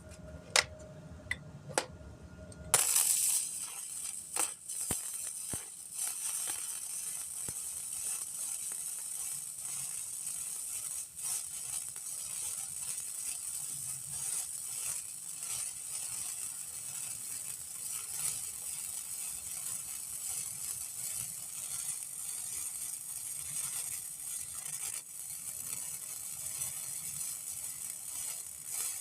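A few sharp clicks, then a gasless flux-core wire welder's arc strikes about three seconds in and crackles steadily as a weld is run on a plate.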